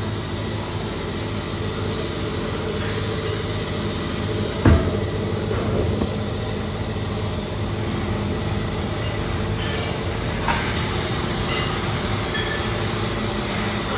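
Steady machinery hum with a sharp metal clank about five seconds in as the steel oven doors are unlatched, and smaller knocks later. A wheeled steel rack loaded with handlebars rolls out along steel floor rails.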